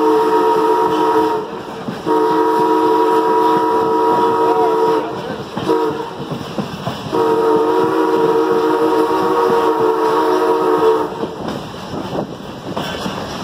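A steam locomotive's whistle sounds several notes at once in four blasts, long, long, short, long: the grade-crossing signal, with a road crossing just ahead. The train runs underneath.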